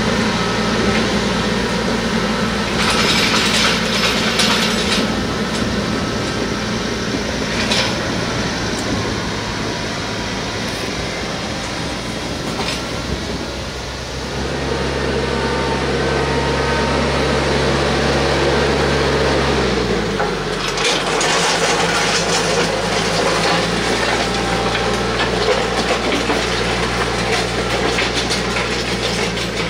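TYM T474 compact tractor's diesel engine running steadily under load while it drags a land plane through dirt and gravel, with the gritty scrape of soil and stones under the implement. The engine note changes about fourteen seconds in and again near twenty seconds, and the scraping grows louder about three seconds in and again past twenty seconds.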